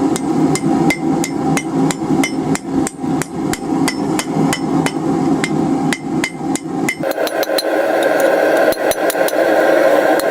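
Hand hammer striking hot steel over the horn of an anvil, rounding a split heart: a steady run of ringing blows, about two to three a second, coming quicker about seven seconds in. A steady rushing noise runs underneath and shifts higher at the same point.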